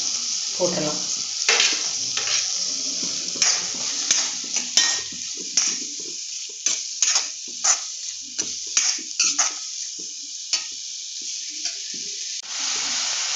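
Chopped carrots, beans and onions frying in oil in a wok, sizzling steadily, while a metal spatula stirs them, scraping and clinking against the pan in a run of quick strokes through the middle.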